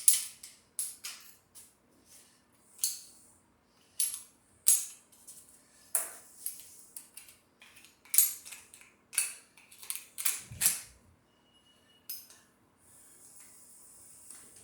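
Metal hand tools clinking and scraping against engine parts: a string of sharp, irregular metallic clicks and scrapes, with a short steady hiss near the end.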